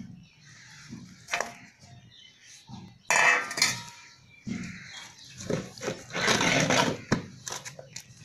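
Steel plate clattering and scraping as raw fish pieces are handled in it, in a few loud bursts with clinks between them.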